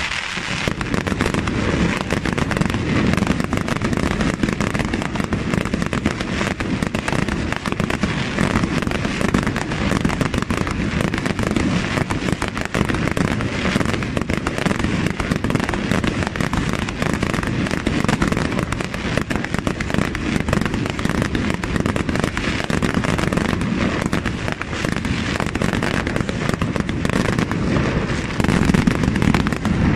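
Aerial fireworks display firing a dense, continuous barrage of shell bursts and reports, with no gaps between them. It grows a little louder in the last couple of seconds.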